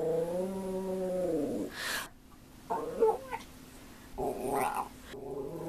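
Shetland Sheepdog howling: one long drawn-out note of about two seconds that sags and fades at the end, followed by three shorter vocal sounds.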